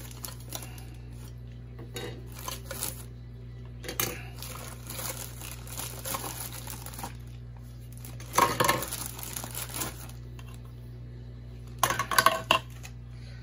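Clear plastic packaging bag crinkling and rustling as hands handle the bagged intake tube parts of an aquarium power filter, with two louder bursts of handling a little past the middle and near the end.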